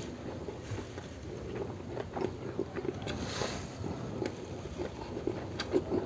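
Close-miked chewing and wet mouth sounds of a person eating, with irregular small clicks and smacks and a brief breathy hiss about three seconds in.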